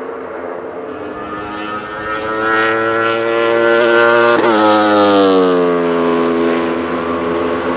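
Wolf GB08 Thunder race car with its 1,000 cc Aprilia RSV4 V4 superbike engine passing at speed on the straight: the engine note climbs in pitch and loudness as it approaches, then drops away in pitch as it goes by about halfway through.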